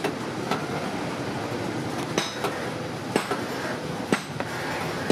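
Sharp hammer knocks at irregular intervals as a blade is driven through the sidewall of an old rubber tyre to cut it away, over steady background noise.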